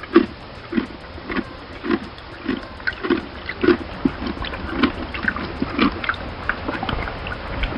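An animal making short, repeated low sounds, a little under two a second, with sharper clicks in between.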